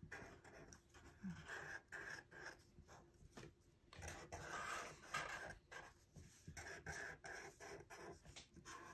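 Faint scratching of black felt-tip permanent markers drawing short, quick strokes on paper, two markers at once.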